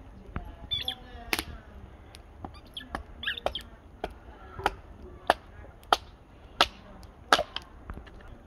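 Hatchet splitting kindling on a wooden chopping stump: a series of sharp wooden knocks that come louder and more regularly in the second half, about one every two-thirds of a second.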